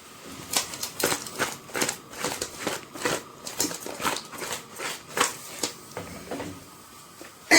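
Kitchen clatter at the stove: a run of sharp, irregular clicks and knocks, a few a second, as cookware is handled over a pot of cooking crabs and shrimp.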